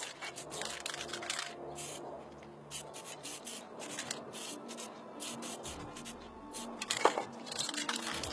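Drawing tool scratching and rubbing across paper in many short, quick strokes, with faint music beneath and a few sharper taps about seven seconds in.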